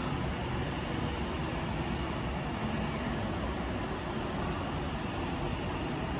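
Steady rumble of an Avanti West Coast Class 390 Pendolino electric train moving slowly along the far platform.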